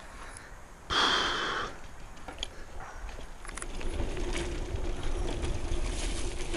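A loud, breathy hiss close to the microphone, lasting just under a second, about a second in. It is followed by wind rumble and a mountain bike rolling on a dirt track, with scattered light ticks.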